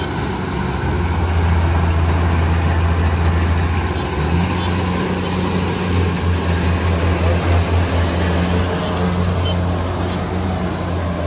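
Combine harvester's diesel engine running steadily under load, a deep even hum that pulses slightly in the middle.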